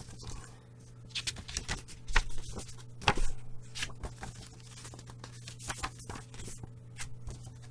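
Hands handling album packaging and record sleeves: irregular rustles, scrapes and light taps, over a steady low hum.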